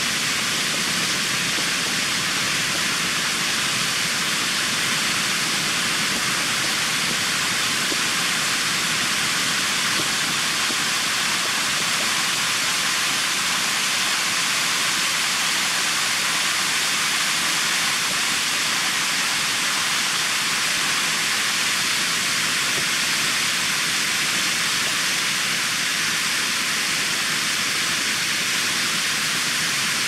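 Water pouring over the rock steps of a three-tiered waterfall, heard close up: a steady, even rush of white water, stronger in the upper range than in the low rumble.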